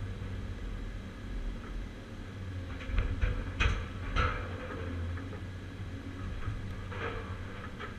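Caterpillar 345C excavator's diesel engine running steadily, heard from inside the cab, with a cluster of loud knocks and clanks about three to four seconds in and a few more near the end as the scrap shear works the scrap.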